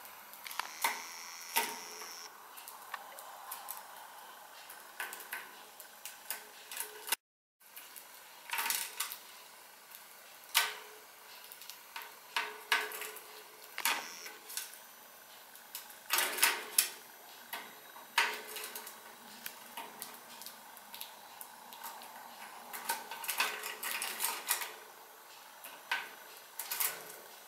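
Gouldian finches pecking at seed in a plastic feeding dish: irregular sharp ticks and taps of beaks on seed husks and the dish, coming in quick clusters.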